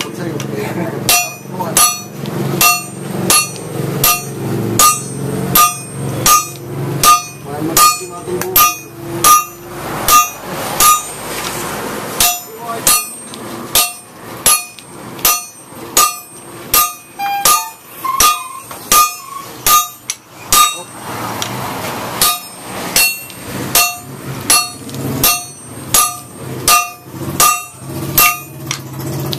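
Hammers striking a red-hot steel blade, forged from a leaf spring, on an anvil: steady ringing blows, about one and a half a second, while a bolo knife is hand forged.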